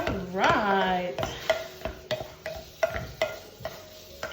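Pampered Chef Mix 'N Chop tool mashing guacamole in a bowl, knocking against the bowl in repeated strokes about two to three a second.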